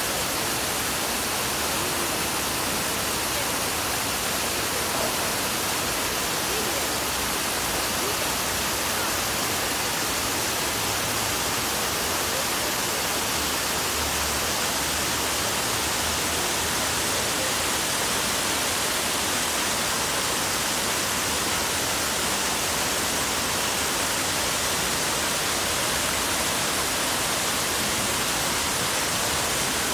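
Revson Fountain's many vertical water jets splashing back into the basin: a steady, unbroken rush of falling water.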